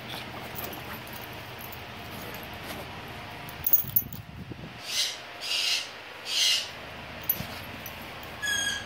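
A dog and a kitten at close play: a clink of collar tags, then three short breathy puffs about half a second to a second apart. Near the end a plush toy gives one short high squeak.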